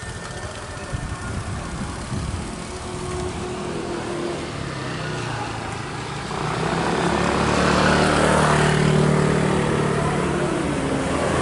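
A motor vehicle engine running, with a low rumble at first that turns into a louder, steady engine note about six seconds in.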